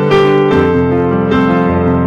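Instrumental keyboard music: sustained piano chords changing every second or so.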